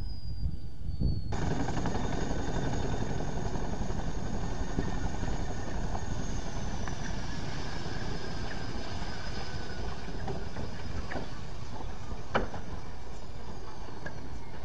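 CH-47 Chinook tandem-rotor helicopter running on the ground with its rotors turning. A dense engine and rotor noise starts abruptly about a second in, under a high turbine whine that slowly falls in pitch. Scattered rattling clicks run through it, with one sharp knock near the end.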